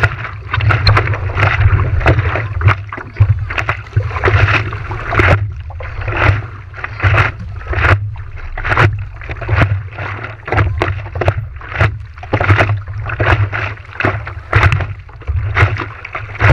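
Water slapping and splashing against the nose of a stand-up paddleboard and the GoPro mounted at water level, in irregular surges with many sharp splashes, over a heavy rumble of wind and water on the microphone. The sound cuts off suddenly at the end.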